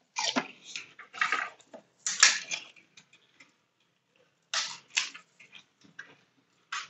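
Crisp, hollow pani puri shells crunching as they are cracked open and chewed, in about five short bursts with quiet gaps between.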